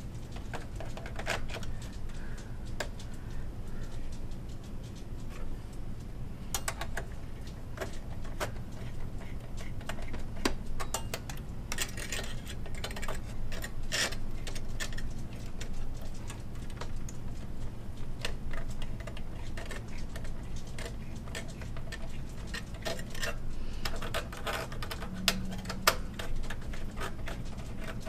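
Irregular small clicks, taps and rattles of metal and plastic parts as a CPU heat sink is seated and its screws tightened inside an HP Z800 workstation case, with busier spells of clicking about halfway through and again near the end.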